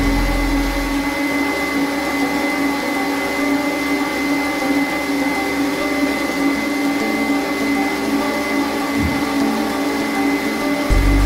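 Electric stand mixer running steadily, beating a fruit-cake batter, with a constant motor whine.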